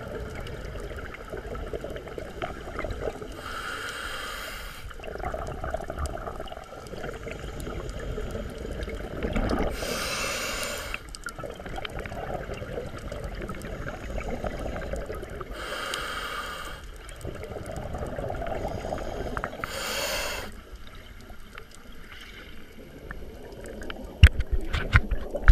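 Scuba diver breathing through a regulator underwater: four bubbly exhalations, each about a second long and roughly five seconds apart, over a steady low underwater rumble. A few sharp knocks come near the end.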